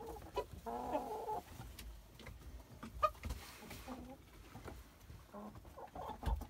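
Brahma chickens clucking, with one drawn-out call about a second in, fainter short clucks later, and a few short clicks.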